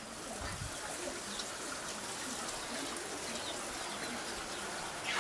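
Water running in a steady trickle.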